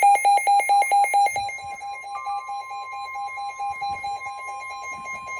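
Weather radio receiver sounding its alert for a severe thunderstorm warning: rapid beeps, about eight a second, loud for the first second and a half, then much quieter. Under the beeps runs a steady high tone, the broadcast's 1050 Hz warning alarm tone.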